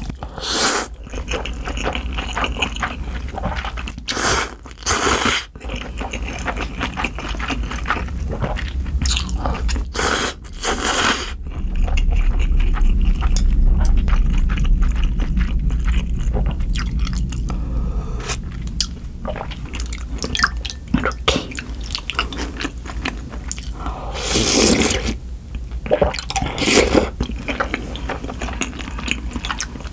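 Close-miked eating of spicy buckwheat cold noodles: several short loud slurps of noodles and broth, with wet chewing between them.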